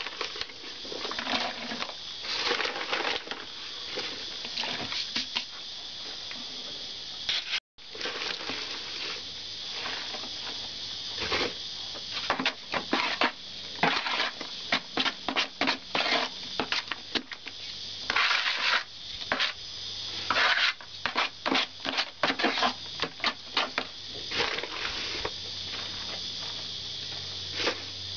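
Powdered tile adhesive being scooped from its paper bag and worked by hand in a plastic bucket: irregular scraping, crunching and patting, over a steady high hiss.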